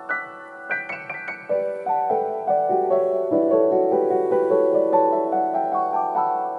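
Background piano music: a gentle melody of struck notes, with a quick run of notes stepping down and back up in the middle.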